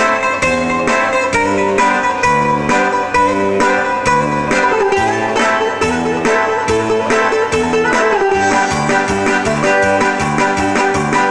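Greek bouzouki playing an instrumental passage: a quick run of plucked notes over a steady line of bass notes.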